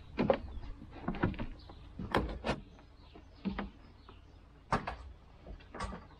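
About eight short knocks and scrapes of hard plastic, irregularly spaced a second or so apart, as an electrical socket is worked into a snug cut-out in a plastic trim panel.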